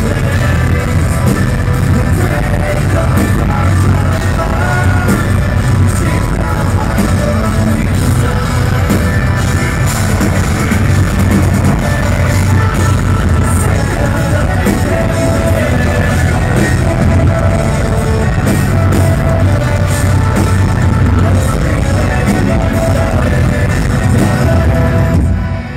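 Rock band playing live through a club PA: guitars, bass and drums with a male singer. The music cuts out about a second before the end as the song finishes.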